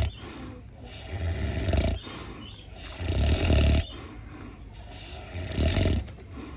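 A pig snoring: three loud, low snores about two seconds apart, each under a second long, with quieter breaths in between.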